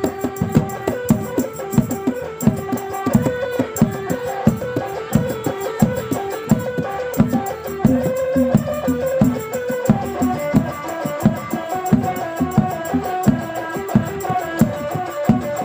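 Traditional rudat music: drums beating a steady rhythm of about two to three strokes a second, with a held melody line over them.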